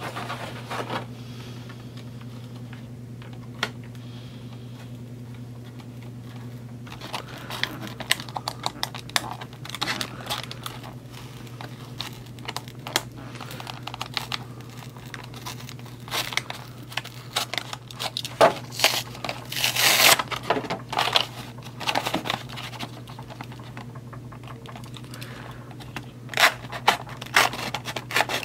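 Irregular clicks, taps and crinkly scraping of small objects being handled, busier from about seven seconds in, over a steady low hum.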